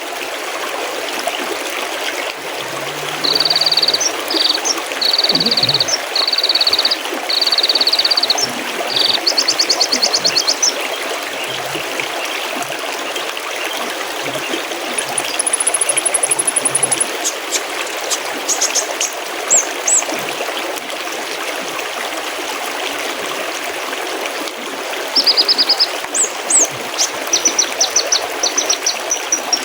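Mountain stream babbling steadily, with small birds calling over it. A few seconds in come four buzzy calls in a row, then a rapid trill, a thin high whistle midway, and a run of quick high notes near the end.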